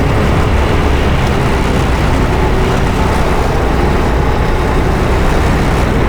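Go-kart engine running steadily at speed, a loud continuous rumble.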